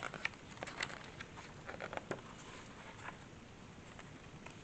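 Pages of a hardcover picture book being turned by hand: soft paper rustling with scattered light ticks and taps.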